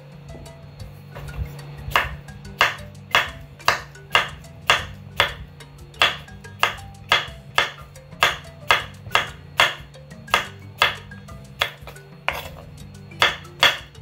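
Kitchen knife slicing a cucumber into rounds on a wooden cutting board: a sharp knock of the blade on the board about twice a second, starting about two seconds in, with a brief pause near the end.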